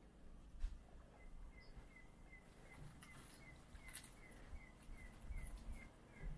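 A small creature's short high chirp, repeated at an even pace about two and a half times a second, over faint footsteps on stone steps.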